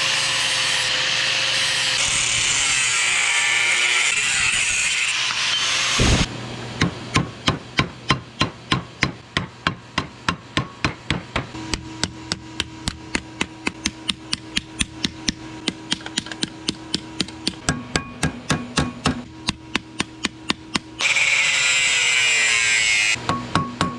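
Electric angle grinder running against steel for about six seconds, then a hand hammer striking hot steel on an anvil in a steady rhythm of about three blows a second. Near the end the grinder runs again briefly, followed by a few more hammer blows.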